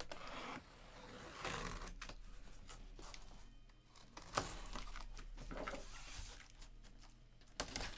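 A taped cardboard box being slit along its seam and its flaps pulled open: scraping and rustling of cardboard and tape, with a few light knocks.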